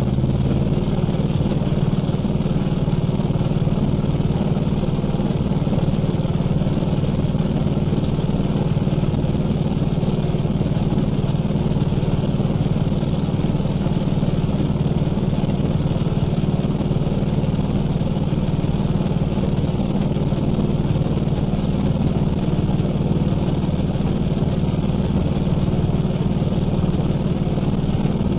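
Old-model Bajaj Pulsar 180's single-cylinder engine running through a modified silencer. It is a steady, even, low engine note with no separate pops standing out.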